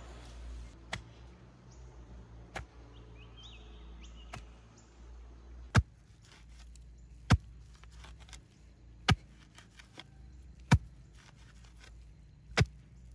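A wooden pole is jabbed down into soil again and again to punch a hole for a stake, each stroke a sharp thud. A few lighter strokes come first, then five loud ones spaced about a second and a half apart.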